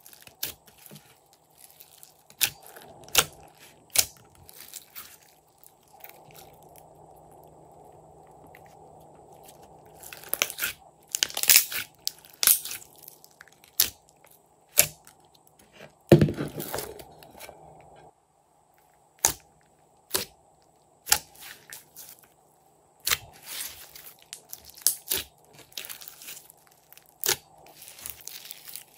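Thick slime being kneaded and squeezed by hand, with irregular sharp clicks and sticky crackling pops, and a heavier squelch about sixteen seconds in.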